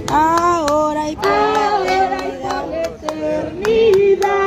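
A woman singing a worship chorus into a microphone, with held, gliding notes, over steady hand clapping at about two claps a second.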